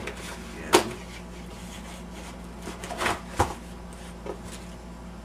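Cardboard keyboard box being opened by hand: a sharp snap about three quarters of a second in, then some rustling and knocking and another sharp snap around three seconds in as the lid comes open.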